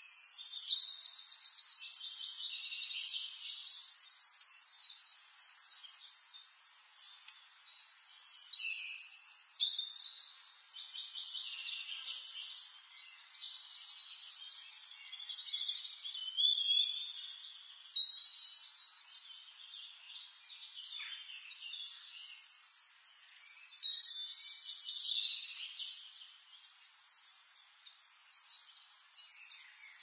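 Songbirds singing, several overlapping songs with fast trills and chirps coming in bouts of a few seconds, four times, over a faint steady hiss.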